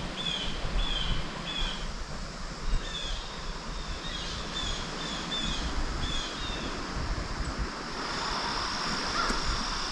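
Open meadow ambience: a small bird repeating short chirps over a steady rush of wind. From about eight seconds in, a steady high insect trill comes up.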